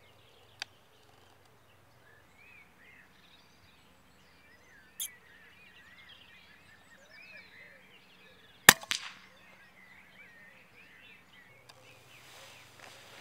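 Single shot from a Daystate MK4 pre-charged pneumatic air rifle, a sharp crack about two-thirds of the way in, followed by a short tail. Birds sing faintly throughout.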